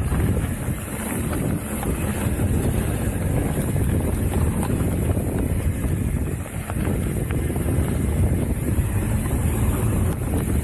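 Wind buffeting the microphone as a mountain bike rolls fast down a dirt trail, with a steady low rumble of tyres and frequent small rattles from the bike over bumps. The noise eases briefly about two-thirds of the way through.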